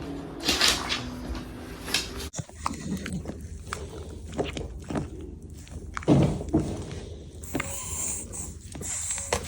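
An animal being handled during a chiropractic treatment: breathy snuffling noises and a short vocal sound from the animal, with scattered small clicks and knocks.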